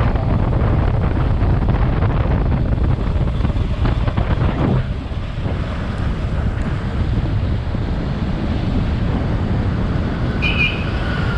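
Steady wind buffeting the microphone of a moving motorcycle, with road noise underneath. A short high beep sounds near the end.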